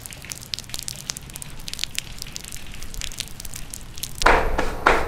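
Irregular faint crackling and clicking, with a louder, denser noise starting near the end.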